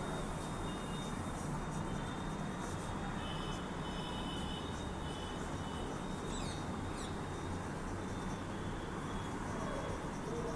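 Steady low background hum, with faint short squeaks of a marker writing on a whiteboard and a few faint high chirps, like a bird's, about six and a half seconds in.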